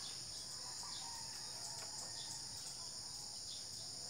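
Steady, high-pitched background chorus of insects, an even buzz that does not change.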